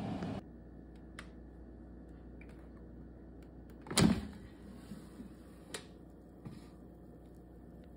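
Gourmia air fryer's fan running, cutting off about half a second in. About four seconds in, a loud clunk as the basket drawer is pulled open, followed by a couple of lighter clicks.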